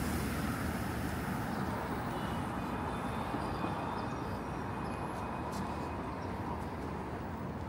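City street traffic: a steady rumble of passing vehicles that slowly fades.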